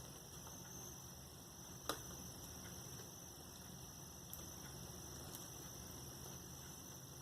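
Faint steady electrical hum with one sharp click about two seconds in and a couple of faint ticks later, from tiny screws being unscrewed from a laptop's screen frame.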